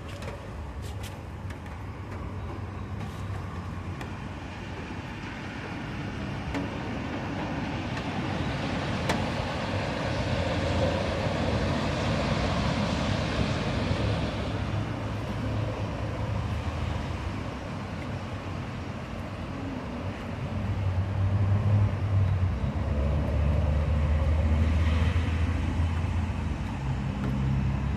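Road traffic: a steady wash of tyre and engine noise that swells twice, once around ten seconds in and again past twenty seconds, with a deeper engine hum in the second swell.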